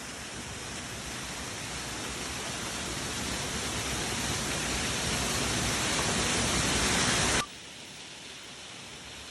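Waterfall's rushing water, a steady rush that grows louder for about seven seconds, then cuts off abruptly to a softer, steady rush of water.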